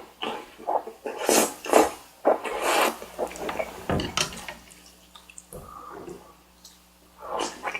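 Close-miked eating: wet slurping and chewing of carbonara buldak stir-fried noodles and bar rice cake in several short bursts, with a single dull knock about four seconds in.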